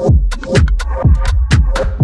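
Electronic dance music with a steady beat: a kick drum thudding about twice a second, with hi-hat ticks in between.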